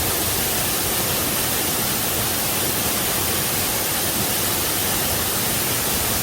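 Waterfall, a steady, even rush of falling water with no breaks or changes in level.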